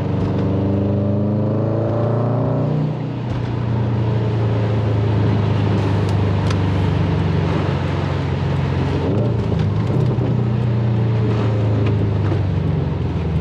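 Subaru WRX STI's turbocharged flat-four, with aftermarket exhaust and catless downpipe, accelerating: the engine note rises for about three seconds, drops at a gear change, then runs fairly steady with small rises and falls.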